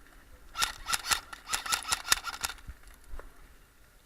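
Airsoft gunfire: a quick, uneven string of about a dozen sharp shots over two seconds, then a single shot about a second later.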